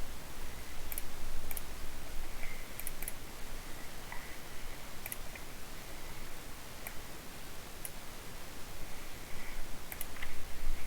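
Keys with Cherry MX Silver speed switches pressed now and then: about a dozen faint, sharp clicks, some in quick pairs, over a steady hiss.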